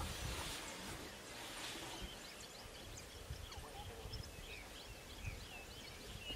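Quiet open-air bush ambience: many short, high chirps and twitters scattered throughout, over a low rumble.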